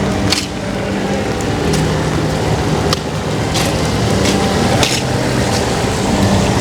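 City street ambience: a steady low hum with a few sharp clicks or taps scattered through it.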